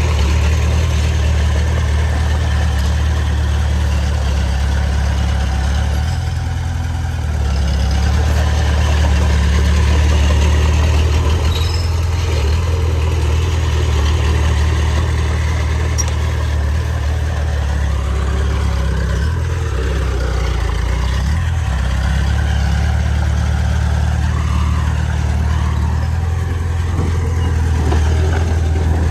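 Heavy diesel engine of earthmoving machinery running steadily with a deep hum. Its note dips briefly about six seconds in and again around twenty to twenty-two seconds in.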